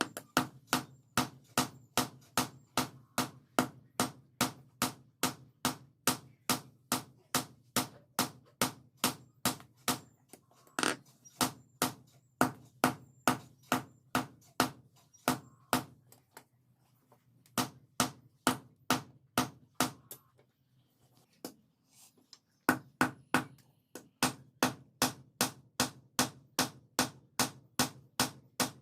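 Blacksmith's hammer striking steel on an anvil in a steady rhythm of about two to three blows a second, with two short pauses about two-thirds of the way through, typical of hand forging a khukuri blade.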